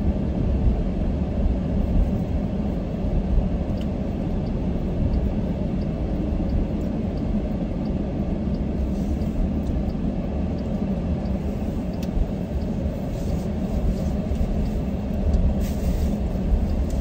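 Steady low rumble of road and engine noise inside a moving minivan's cabin.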